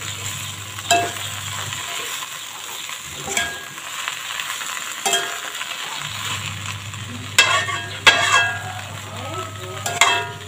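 Water spinach sizzling in an aluminium wok as a metal spatula stirs it, with scrapes and clinks against the pan. A louder run of ringing clatter comes about two-thirds through and again near the end.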